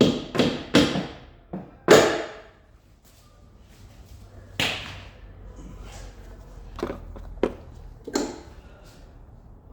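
Irregular sharp knocks and clanks of hand tools and metal parts being handled while a car's engine bay is stripped. There is a quick cluster of knocks at the start, the loudest about two seconds in, then a few more spaced out.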